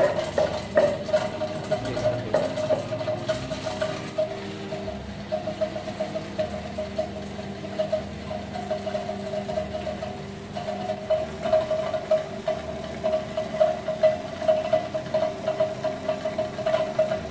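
Electric stone wet grinder running, its steel drum turning against the stone roller as it grinds rice and balloon vine leaves into dosa batter. It makes a steady hum with a quick, regular pulse.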